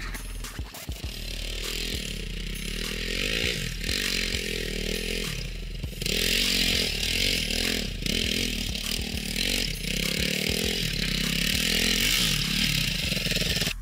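Dirt bike engine revving up and down as the bike rides the track toward the microphone, getting louder about six seconds in.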